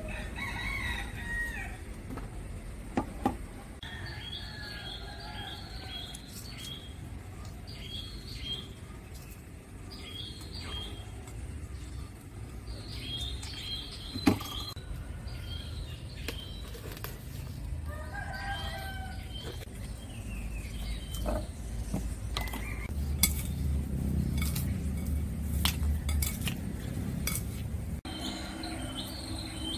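Rooster crowing and chickens clucking, with small birds chirping and a few sharp clinks of a spoon against a bowl.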